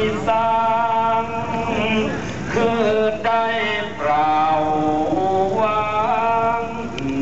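A male voice singing a slow Northern Thai (Lanna) 'ue' chant, holding long, drawn-out notes whose pitch bends and wavers, in phrases with short breaths between them.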